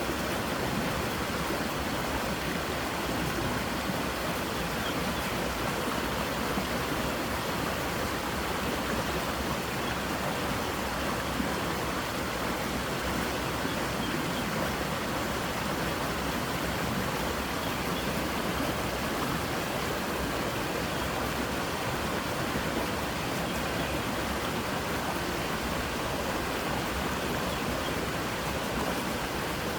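Creek water rushing steadily over rocks, a continuous even rush.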